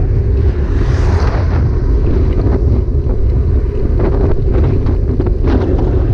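Wind buffeting the microphone on a moving bike: a loud, steady low rumble with scattered light clicks and rattles.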